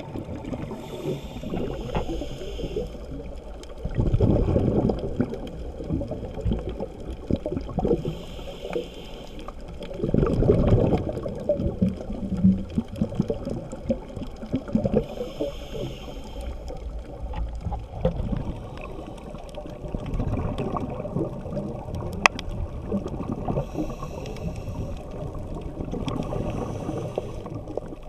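Scuba diver breathing underwater through a regulator: a hiss on each inhale and a loud gurgling rush of exhaled bubbles, several breaths over the stretch. One sharp click a little after the middle.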